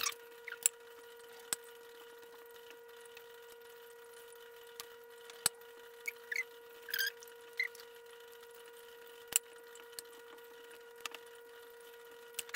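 Sped-up handling of raw chicken thighs and butter in a glass baking dish: sparse, short, wet clicks and squeaks as fingers work the skin, over a steady faint hum.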